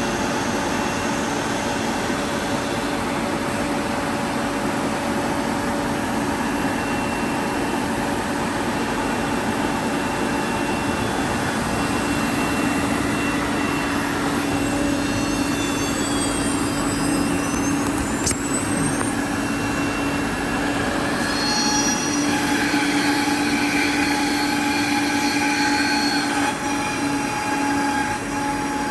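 CNC router running as it machines wood: a steady spindle whine over dense cutting noise, with a few short sliding high tones about halfway through.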